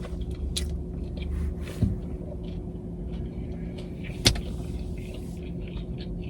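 Close-up chewing of food, with soft wet mouth clicks scattered through, over a steady low hum. One sharper click stands out about four seconds in.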